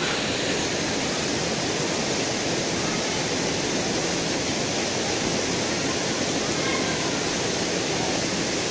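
Steady rush of a rocky mountain stream: an even, unbroken hiss of flowing water.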